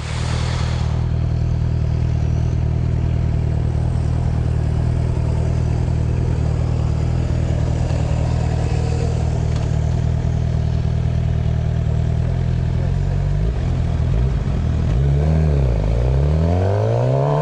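Motorcycle engine running at a steady speed for a long stretch, then near the end its revs drop briefly and climb again.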